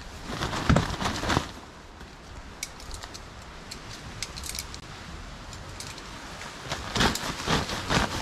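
Nylon tent fabric rustling as the rain fly is pulled off a dome tent, with a run of light metallic clinks from a tent stake being handled in the middle and more fabric rustling near the end.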